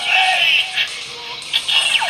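Electronic music and sound effects from a Bandai Kamen Rider Zi-O Kiva Ridewatch toy, played through its small built-in speaker, thin with almost no bass.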